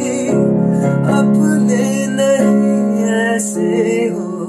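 Instrumental passage of a Hindi song used as background music: held chords that change about once a second.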